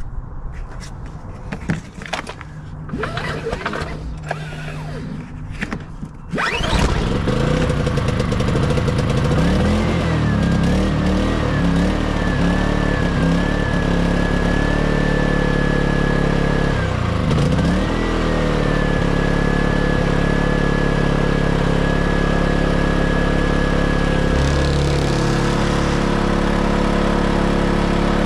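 Erayak 4500PD inverter generator being pull-started for its first run: several sharp pulls over about six seconds, then the engine catches and runs. Its whine wavers as the speed settles, and the speed dips briefly about seventeen seconds in.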